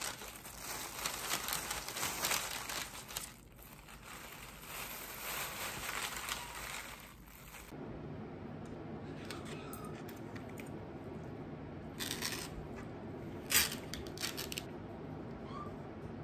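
Thin disposable plastic glove crinkling and rustling as a gloved hand handles baked goods. Then a steady low hum with a few short clicks and knocks, the sharpest about two-thirds of the way through.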